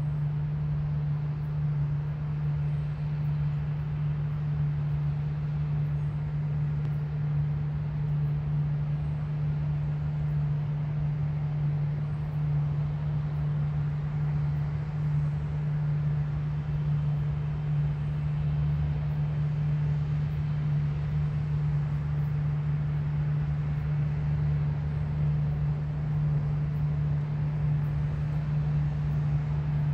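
New Holland combine harvester running steadily while harvesting wheat: a constant low drone with one unchanging hum.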